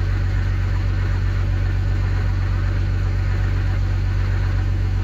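12-valve Cummins 5.9 inline-six turbo diesel idling steadily, heard from inside the cab; the engine is warm, not a cold start.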